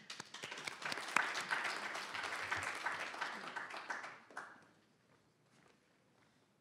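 Audience applauding, a dense patter of many hands that dies away after about four and a half seconds.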